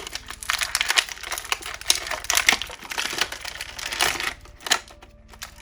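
Stiff plastic packaging crinkling and clicking as it is handled: a dense, irregular run of crackles, then a few separate clicks near the end.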